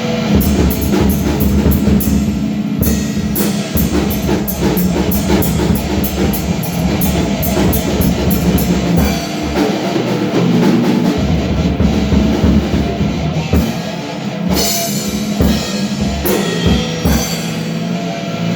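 Rock music with a driving drum kit: bass drum and snare keeping a steady beat.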